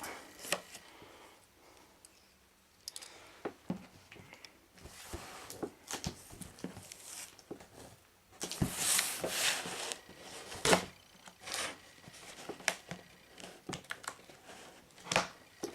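Cardboard shipping box being handled and picked at to open it: scattered taps and knocks on the cardboard with a few stretches of scraping and tearing at the packing tape.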